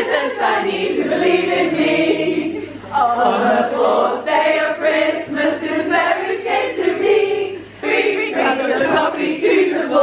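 A large group, mostly women's voices, singing a song together, with short breaks between lines about three and eight seconds in.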